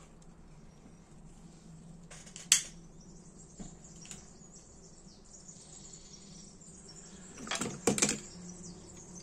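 Dupont lighter being worked for a flame-height test: one sharp metallic click about two and a half seconds in, a fainter click a second later, and a short cluster of clicks and handling noise near the end.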